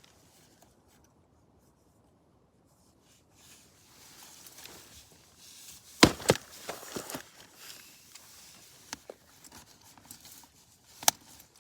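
A few sharp clicks and knocks, loudest about six seconds in and again near the end, after a near-quiet start: objects being handled.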